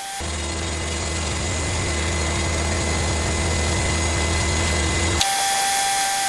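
Cooks AC36 band sawmill running steadily with a low hum. About five seconds in the sound changes abruptly to a thinner steady sound with a high whine.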